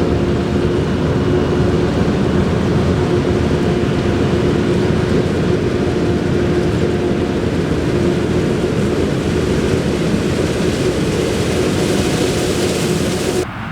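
Heavy farm machinery running steadily under load, a dense engine noise with a constant tone through it, cut off abruptly near the end.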